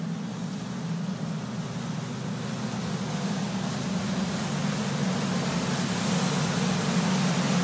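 Semi-truck driving through floodwater: a steady engine drone under the rushing hiss of water thrown up by the cab, growing louder as the truck comes close.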